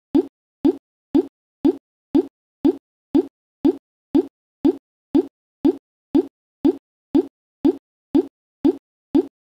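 Identical short, dull plops repeating evenly, two a second, with silence between them.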